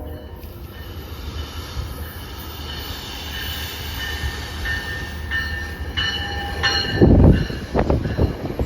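Metro-North Shoreliner passenger train rumbling into the station with its wheels squealing in high tones. Near the end comes a run of loud, heavy clunks as the wheels pass over rail joints.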